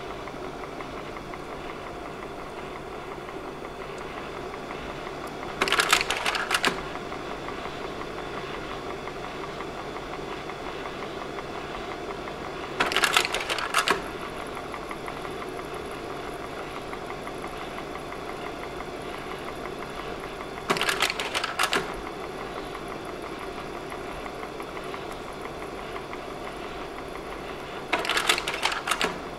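Slide projector's fan running steadily, with the clatter of its slide-change mechanism about every seven seconds, four times, each change a quick run of clacks lasting about a second.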